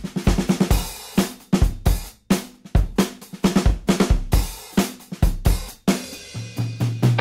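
Background music: a drum kit playing a steady beat of kick, snare and cymbal strikes. Near the end a low held bass tone comes in under the drums.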